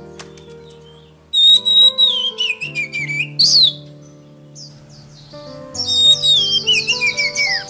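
Songbird singing loud whistled phrases with sliding, falling notes and quick trills, in two spells: one starting about a second and a half in, and another near the end. Underneath is backing music with held low notes.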